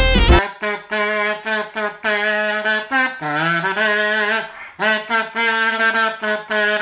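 A trumpet plays solo, heard through a video call. It plays a slow line of held notes, one of which dips lower about three seconds in. It begins as a jazzy saxophone music bed cuts off about half a second in.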